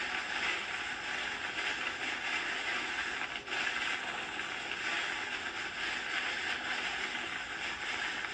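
Steady rushing, rattling noise of a hurricane heard from inside a storm chaser's vehicle, with a brief dip about three and a half seconds in.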